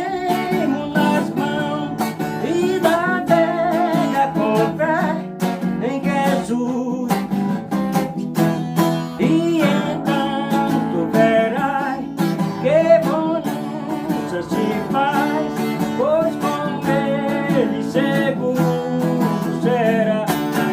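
Acoustic guitar music: strummed chords under a sliding, plucked melody line.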